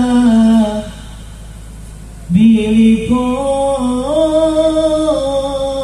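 A man's voice singing sholawat, the Arabic devotional chant, through a loud outdoor sound system. A held note fades out about a second in, and after a short lull a long drawn-out line begins, rises in pitch and falls back near the end.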